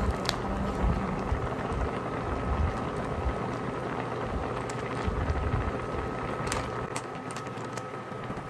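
Clams in broth at a rolling boil in a wok, bubbling steadily.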